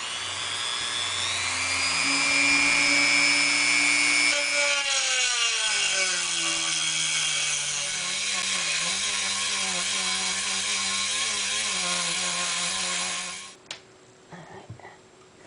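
Dremel rotary tool with a 1.5-inch metal cut-off wheel cutting through a metal electrical-box mounting rail. The whine rises as the tool spins up, then about four and a half seconds in its pitch drops and wavers as the wheel grinds into the metal. It stops abruptly near the end.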